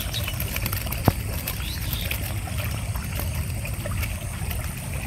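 Shallow water trickling and running in a flooded rice-field channel, under a steady low rumble, with a single sharp click about a second in.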